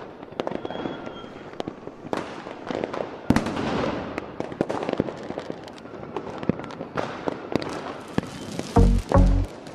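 Aerial fireworks bursting: a steady run of sharp bangs with crackle between them, the heaviest bang about three seconds in followed by a spell of crackling. Near the end, music with deep drum beats cuts in over it.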